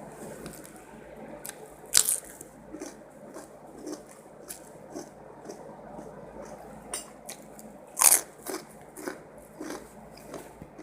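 Close-up eating sounds from someone eating spicy fried rice with petai beans: chewing and mouth smacks at about two a second. There are two louder sharp crunches or clatters, about two seconds in and about eight seconds in.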